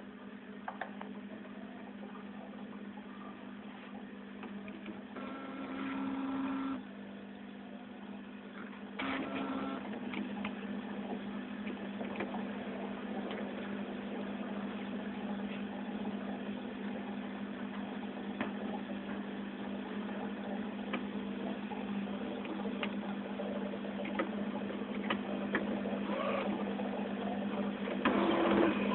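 Inkjet printer mechanism running as it prints: a steady motor hum with scattered clicks from the carriage and feed. There is a louder whirring stretch about five seconds in, and the running gets louder and busier from about nine seconds on.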